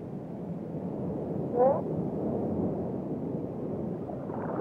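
Sea lion giving one short, rising call about one and a half seconds in, over a steady rushing wash of water.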